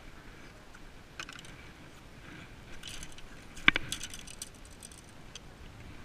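Small hard clicks and rattling from handled fishing gear: a few faint clicks about a second in, then a sharp click a little past halfway, the loudest sound, followed at once by a quick run of light clicks.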